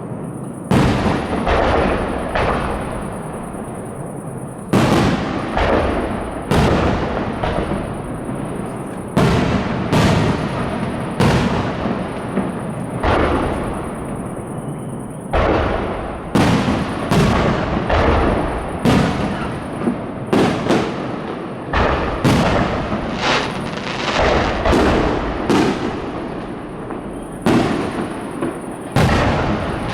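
Fireworks finale: aerial shells bursting in rapid succession, loud bangs about every second or two, some in quick clusters, each trailing off into continuous rumbling echo.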